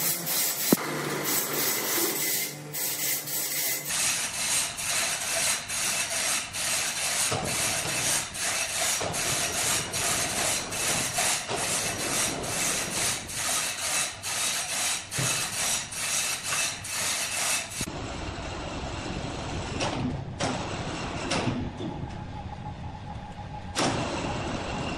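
Horizontal band sawmill running, its blade cutting through a large red incense wood log. The sound pulses evenly about twice a second for much of the time and changes abruptly a couple of times.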